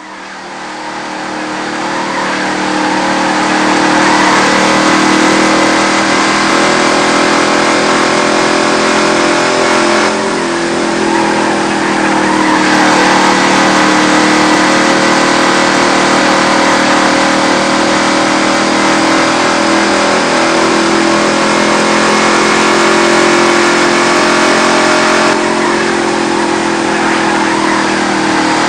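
NASCAR race car engines running in a dense, steady drone that fades in over the first few seconds, with small rises and falls in pitch.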